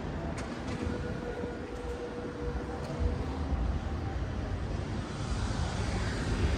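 City street traffic: a steady noise of vehicles, with a low rumble that grows from about three seconds in. A faint steady tone sounds through the first half.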